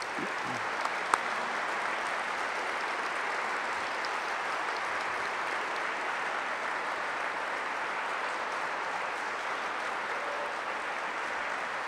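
Audience applauding steadily. A single sharp knock comes about a second in.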